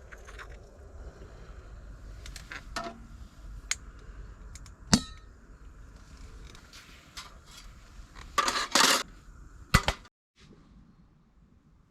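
Metal cookware and utensils clinking during camp cooking, with scattered sharp clicks and one ringing clink about five seconds in. A brief rustling noise comes around eight and a half seconds, then a sharp knock, and the sound cuts out near the end.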